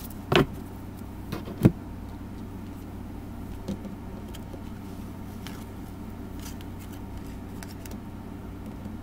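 Tarot cards being laid down and handled on a table: two sharp taps in the first two seconds, the second the louder, and a faint one a couple of seconds later, over a steady low background hum.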